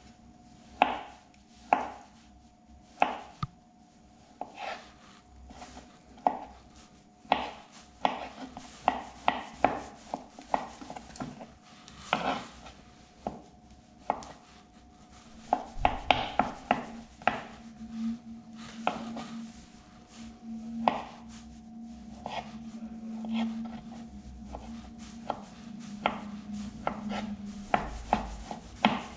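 Kitchen knife dicing a peeled potato on a plastic cutting board: irregular sharp taps of the blade hitting the board, coming in quicker runs in places.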